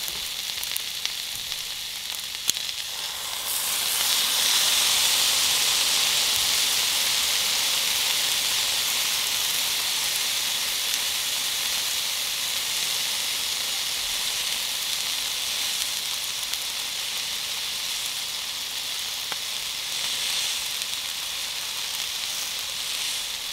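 Steady sizzling, as of food frying, with a few sharp pops. It swells louder about four seconds in and then holds steady.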